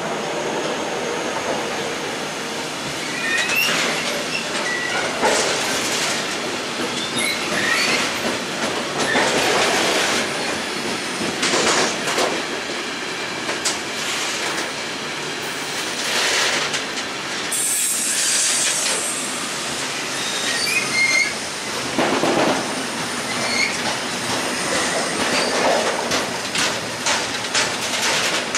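Freight train of tank wagons rolling past close by: steady wheel and wagon noise with short high wheel squeals now and then, and quick clicks of wheels over rail joints near the end.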